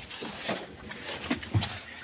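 A few light knocks and bumps, handling noise on a small wooden fishing boat, over a faint steady background.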